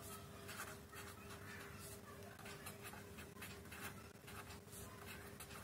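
Pen scratching on paper in short, irregular strokes as equations are written out, faint, over a low steady hum.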